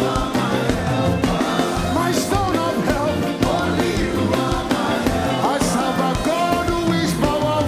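Live gospel praise band playing a dance song, with singing voices over a steady drum beat and bass.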